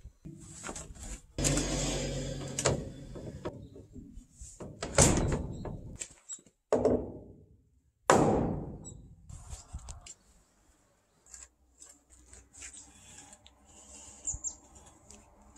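Wooden mallet knocking timber door-frame members together at a joint: a few heavy, separate knocks that ring briefly, followed by lighter taps and clicks.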